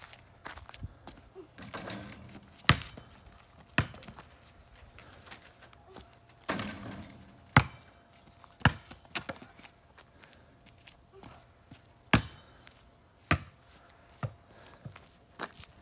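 A rubber basketball bouncing on an asphalt driveway and thudding against a garage door: a series of sharp thuds, several in pairs about a second apart, with shoe scuffs on the asphalt in between.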